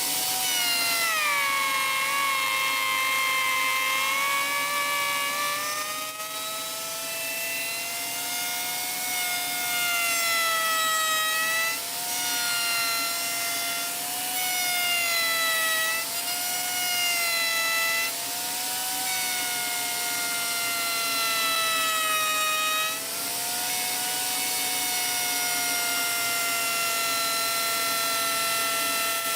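Electric woodworking power tool whining steadily as its motor runs. The pitch sags and recovers several times as the tool is pushed into the wood and eased off.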